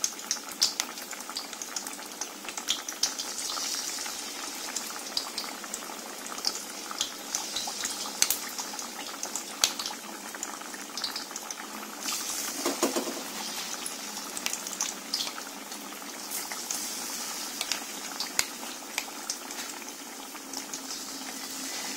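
Battered sweet potato slices deep-frying in hot oil in a wok: a steady sizzle with frequent small pops and crackles.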